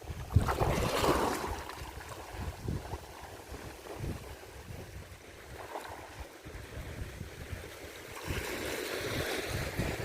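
Sea waves washing onto a beach, with wind buffeting the microphone. A louder surge of water comes about half a second in, and the wash swells again near the end.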